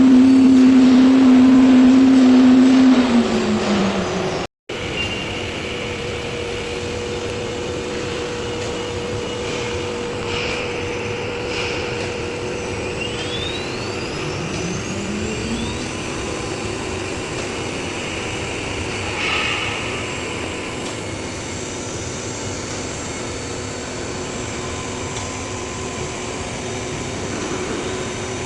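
5-axis CNC machine running: the spindle holds a steady high hum, then winds down, falling in pitch about three seconds in. After a brief break in the sound, a steady mechanical drone carries on, with a few short rising whines.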